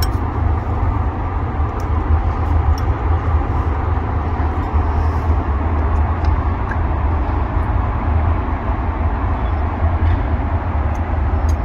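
Steady low rumble of outdoor noise, wind on the microphone over city traffic, with a few faint clicks.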